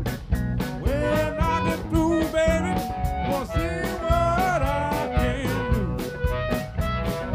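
Live blues band playing an instrumental passage: electric guitars, bass and drums on a steady beat, with a harmonica playing bending, sliding notes over the top for most of the passage.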